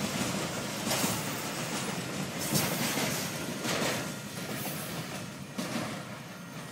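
Train cars rolling past close by, with clattering knocks from the wheels and cars. The sound fades over the last few seconds as the end of the train goes by and moves away.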